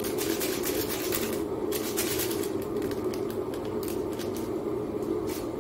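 Plastic instant-noodle seasoning sachet crinkling and being torn open in irregular crackly rustles, over a steady low hum.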